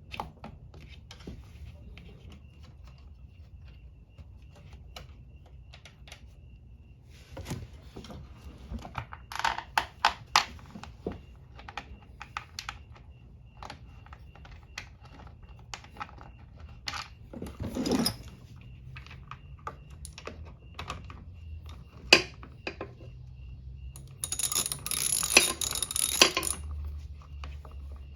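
Light clicks and knocks of hands working the air filter box cover and its bolts on a Honda HR194 lawn mower as the bolts go back in. There is a dull thud partway through and a quick run of rapid clicking near the end.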